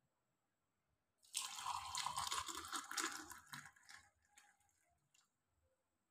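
Hot milk poured from a steel pan into a ceramic mug, a splashing stream that starts about a second in and tails off after a few seconds.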